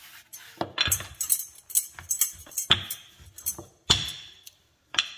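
Rolling pin knocking and clinking against a rolling board as stiff dough is rolled out: a series of sharp knocks, several with a brief high ring.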